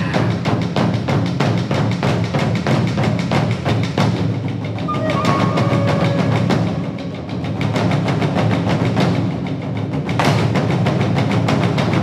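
Background music with a fast, even percussion beat over a dense low bass layer, with a few held melodic notes partway through.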